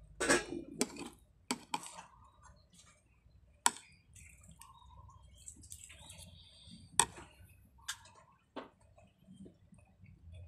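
Metal spoon clinking and scraping against a plate of rice and scrambled egg: about eight sharp clicks scattered through, with soft eating sounds between them.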